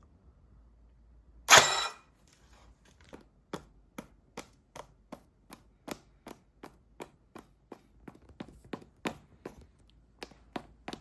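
A single loud clatter, then a steady run of light clicks or taps, about three a second.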